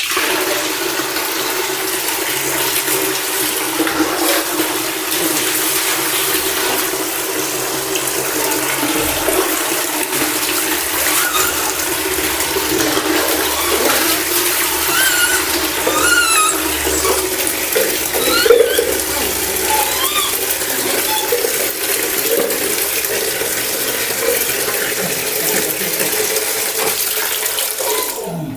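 Water running and splashing steadily as a dog is rinsed in a bath, switching on at the start and off at the end. A few brief high squeaks come through in the middle.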